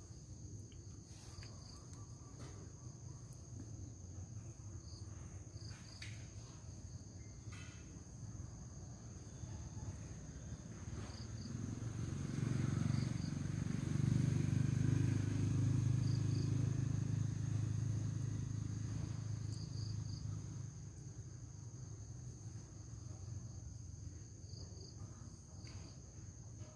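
Forest insects droning steadily at a high pitch, with short paired chirps every few seconds. Around the middle, a low rumble swells for several seconds and then fades.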